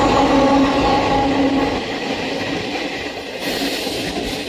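Electric passenger train running through a tunnel, heard from on board: a steady rumble and rush with a humming tone that fades after about two seconds. A brighter rushing noise comes in about three and a half seconds in.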